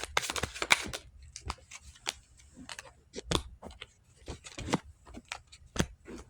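Deck of reading cards being shuffled and handled: a quick run of card clicks in the first second, then single snaps and flicks of cards at irregular intervals.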